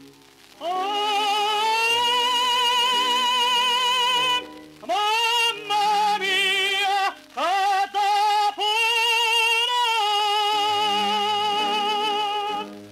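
Operatic tenor singing with orchestra, played from a shellac 78 rpm record. He scoops up into long held high notes with wide vibrato, sings a few shorter phrases, then holds a final long note that ends just before the close.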